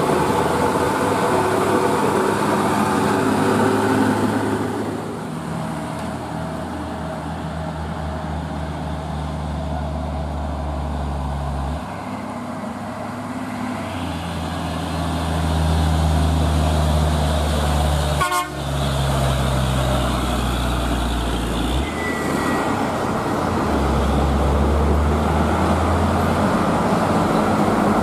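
Heavy diesel truck engines labouring up a steep climb, a steady low drone that changes abruptly several times as one truck gives way to the next, with a sharp click about two-thirds of the way through.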